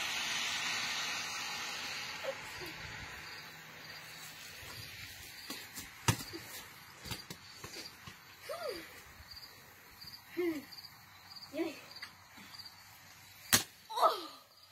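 Outdoor ambience: a passing vehicle's noise fades out over the first few seconds, then a cricket chirps faintly about twice a second. A few short, pitch-bending calls and two sharp slaps break in, the last near the end as the football is caught.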